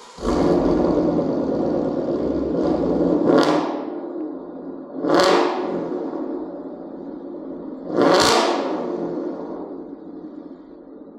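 Ford Mustang GT's 5.0 Coyote V8 through a freshly installed Corsa Xtreme cat-back exhaust, firing up with a sudden loud flare near the start. It is then revved three times, each rev swelling and falling back to a rumbling idle.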